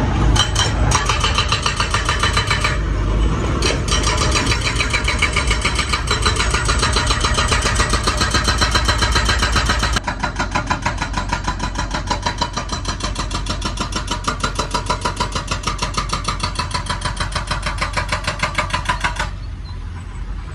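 Excavator-mounted hydraulic breaker hammering hard rock in a rapid, even stream of blows, over the excavator's running engine. The hammering pauses briefly about three seconds in, changes abruptly about halfway through, and stops shortly before the end.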